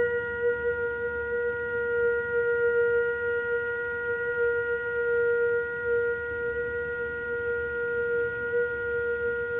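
A steady high tone held at one unchanging pitch, with a few fainter overtones above it.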